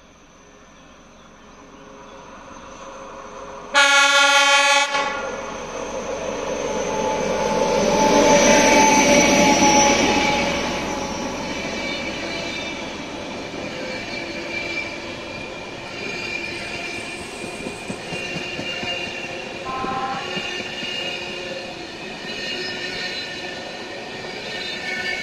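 EIC Jantar passenger train sounds its horn once, a loud blast of about a second, then passes close by with rising rail noise. High steady tones of wheels squealing against the rails run on after it has gone by.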